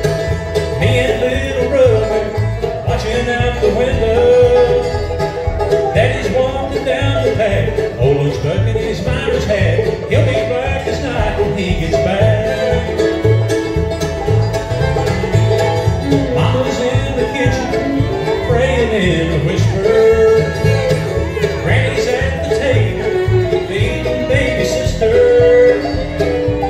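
Bluegrass band playing live on banjo, fiddle, mandolin, acoustic guitar and upright bass, the bass keeping a steady beat.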